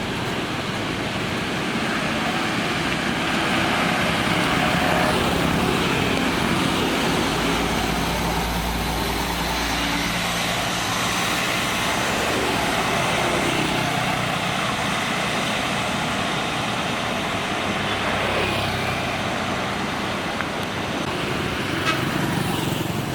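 Buses' engines running and moving through a busy bus terminal, a steady traffic din. A deep engine rumble swells about a third of the way in as a bus passes close.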